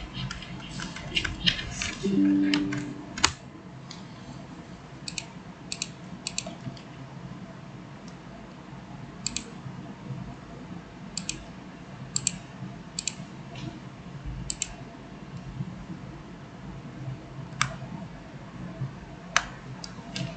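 Computer mouse and keyboard clicks: a quick flurry of clicks and taps in the first three seconds, then single clicks every second or two over a faint steady hum.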